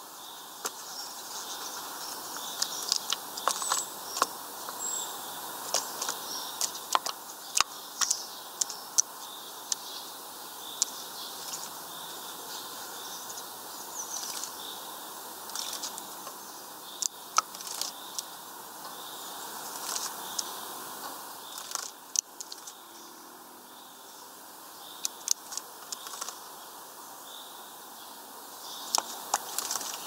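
Great tit bathing in a shallow plastic tray of water: many short splashes, flicks and taps against the plastic, scattered irregularly and sometimes in quick clusters, over a steady background hiss.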